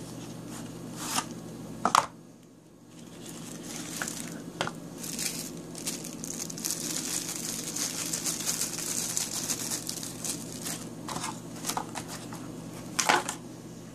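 Clear plastic bag crinkling and rustling as a folding knife is worked out of it, after a few sharp knocks and taps from a cardboard knife box being opened, the loudest knock about two seconds in. A steady low hum runs underneath.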